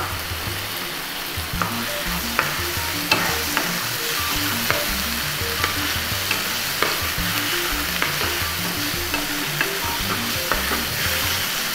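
Onions and freshly added tomato paste sizzling steadily in a non-stick frying pan as a wooden spatula stirs them, with scattered light clicks of the spatula against the pan.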